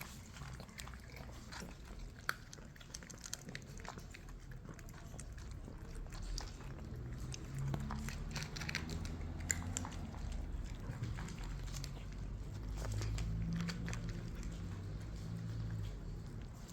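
Kittens eating, with many small irregular chewing and biting clicks. A low rumble underneath grows louder about halfway through.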